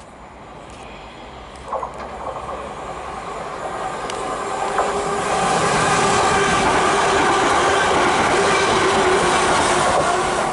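London Northwestern Railway Class 350 Desiro electric multiple unit approaching and running past on the main line. Its noise builds from about two seconds in to a loud rush of wheels on rail with a steady high whine, then eases slightly near the end.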